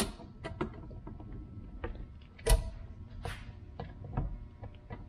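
Irregular clicks and light metallic knocks of a fuel rail and injectors being worked by hand onto an intake manifold as an injector is seated. The loudest knock comes about two and a half seconds in.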